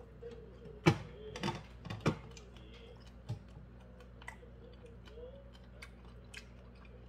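Close-miked eating of crisp pan-fried dumplings: a few sharp mouth clicks and smacks in the first two seconds, then a run of quieter clicks while chewing.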